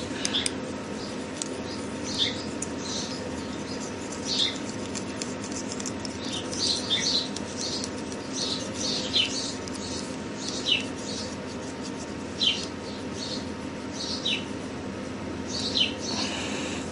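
Polishing steel rubbed over a hammered precious-metal band, squeaking as it burnishes the high points and edges. The squeaks are short and high-pitched, slide downward, and come one every second or two over a steady low hum.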